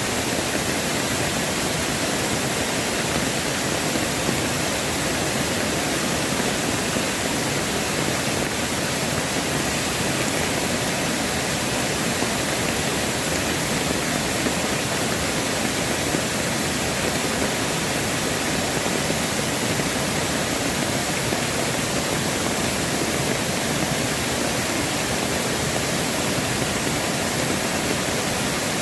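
Mountain stream water rushing steadily over rocks, a constant even rush with no breaks.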